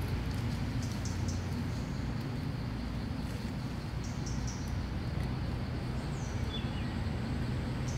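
Outdoor forest ambience: a steady low rumble with short, high chirps and clicks scattered through it, and a brief chirp about six and a half seconds in.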